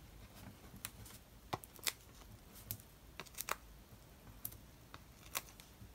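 Faint, irregular sharp clicks and taps of fingers picking small foam adhesive dimensionals off their sheet and pressing them onto a paper flower cutout.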